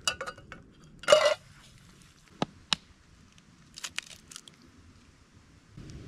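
Handling of a metal camping kettle and its lid: a run of clinks and knocks, with the loudest short clatter about a second in, two sharp clicks a little later and a few more around four seconds in.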